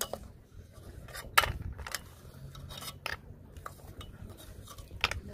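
Metal spoon clinking against a metal cooking pot while stirring field snails in hot water: a few scattered clinks, the loudest about a second and a half in and another near the end.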